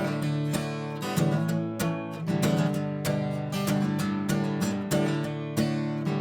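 Acoustic guitar strummed in a steady rhythm, each stroke ringing on into the next, in an instrumental passage of a song.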